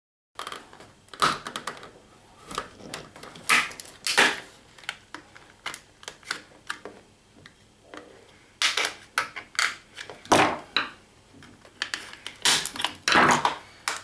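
Plastic shell of a Sony TV remote control being pried and cracked open with hand tools: irregular sharp clicks and snaps as the case clips give, some in quick clusters.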